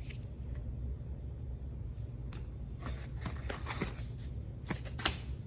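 A cardboard gift box and its foam insert being handled and pulled open: scattered crisp rustles, scrapes and small clicks, growing busier toward the end, the sharpest one about five seconds in.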